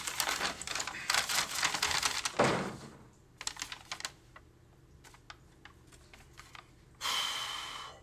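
A run of light clicks and rattles, dense at first and then thinning to scattered single clicks, followed in the last second by a short hissing whoosh.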